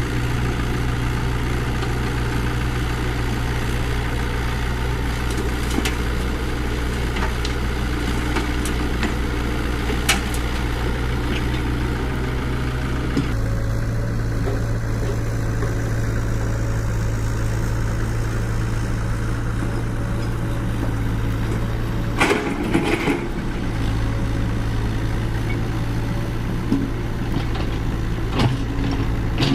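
Construction machinery engine running steadily, its note shifting a little about halfway through, with a few sharp knocks or clanks about two-thirds of the way in and again near the end.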